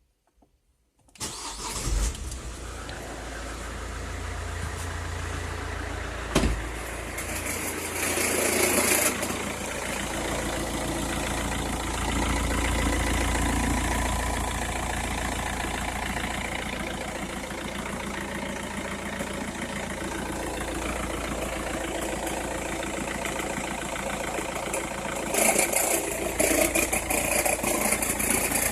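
Opel Meriva engine started from cold about a second in, then running at idle, with a single sharp knock about six seconds in. The crackling noise it makes, which the owner says comes only when the engine is cold or at very low revs, is the sign of a fault he has not pinned down.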